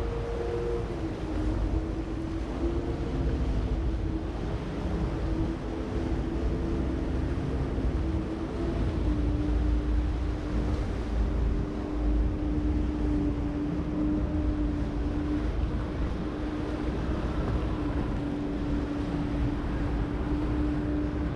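Boat engine running steadily, heard from on board, with a heavy low rumble and a droning tone that steps slightly lower about eight or nine seconds in; wind buffets the microphone.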